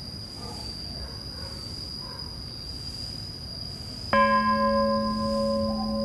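A temple bell struck once about four seconds in, ringing on with a low hum and several higher overtones, the higher ones dying away first. A steady high-pitched hum lies under it.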